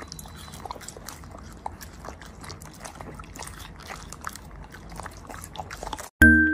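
A puppy eating strawberries from a metal bowl: soft wet chewing and many small clicks, at a low level. About six seconds in it cuts to a few ringing glockenspiel notes.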